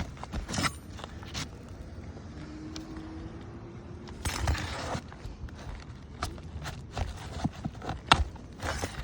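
Irregular knocks, clicks and scrapes of hand work on an asphalt roof while a damaged three-tab shingle is pried loose, with a longer scrape about four seconds in and one sharp knock near the end.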